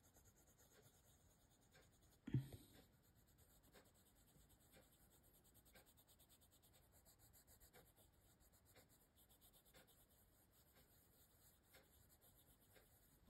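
Faint scratching of a coloured pencil shading on paper, in short repeated strokes, with one brief soft thump about two seconds in.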